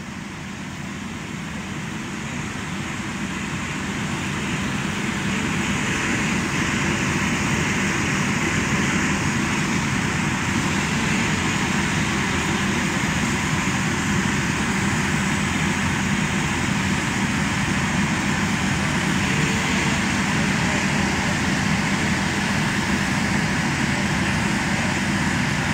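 Gas-powered roof saws running steadily as firefighters cut through the roof to vent the fire. The sound grows louder over the first few seconds and then holds steady.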